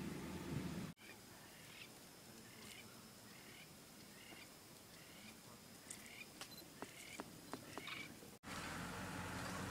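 A small animal's short chirping call, repeated about every two-thirds of a second over a faint, thin, high steady tone, with a few sharp clicks near the end. At the start and near the end a low, steady hum comes in.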